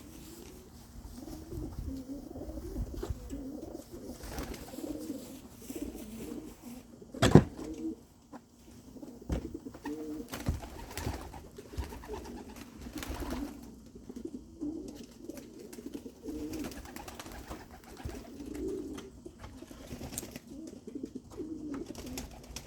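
Racing pigeons cooing steadily in the loft, with a few small knocks and one sharp, loud knock about seven seconds in.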